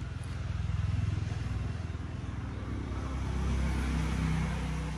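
Motor vehicle engine running, a low steady hum that swells about a second in and again near the end.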